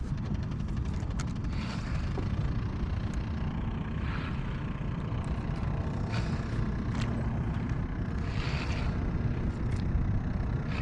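Wind buffeting an action camera's microphone: a steady low rumble, with faint swishes of water every couple of seconds as the kayak moves.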